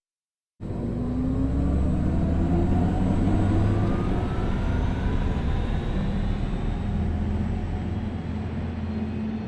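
Audi RS e-tron GT's electric drive sound under way, starting about half a second in after a moment of silence: a deep hum with a thin whine that rises slowly in pitch, as under acceleration, over a steady rush of noise.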